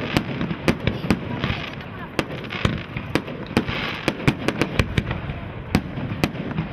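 Fireworks going off in rapid, irregular succession, sharp bangs and pops two to four a second over a continuous crackling hiss.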